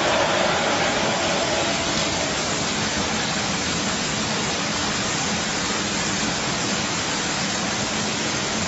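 Fuel being poured into the tank of a YN27 petrol rock drill, a steady splashing hiss.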